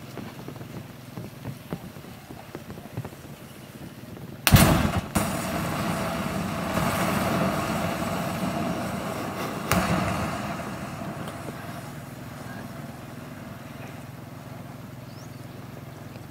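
Burning matches crackling under foil-wrapped chicken, then a plastic disposable lighter bursting in the fire with a loud bang about four seconds in, followed by several seconds of rushing burning butane gas. A second bang comes near ten seconds, and the rushing then slowly dies down.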